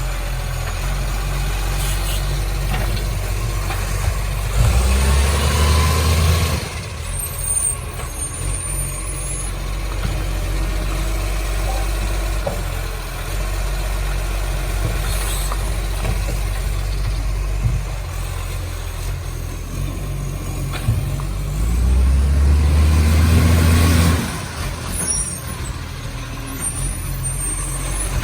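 Garbage truck's diesel engine running, with an exhaust leak. It revs up twice for several seconds, each time ending in a short hiss of air.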